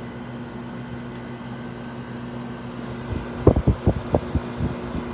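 Haier 5,200 BTU window air conditioner running with a steady low hum from its rotary compressor and fan. From about three seconds in, a run of irregular low thumps.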